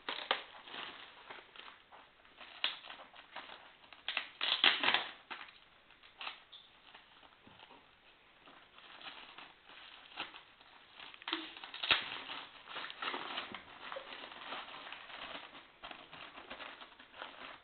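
Packaging being handled and opened by hand: irregular rustling with scattered clicks and knocks, a louder flurry about four to five seconds in and a sharp click about twelve seconds in.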